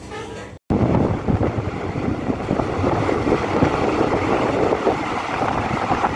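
Wind buffeting the microphone and road noise from a moving vehicle: a loud, even rush with irregular low gusts that starts abruptly just under a second in.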